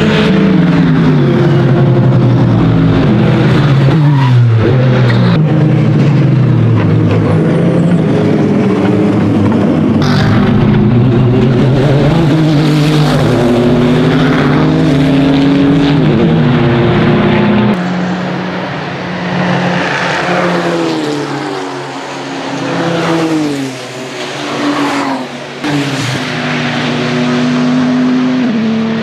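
Several race cars passing on a circuit, engines rising and falling in pitch through gear changes, among them the Scuderia Cameron Glickenhaus SCG 003C's Honda twin-turbo V6. The sound changes abruptly about ten seconds in and again a little past halfway, and is quieter in the last part, swelling and fading as cars go by.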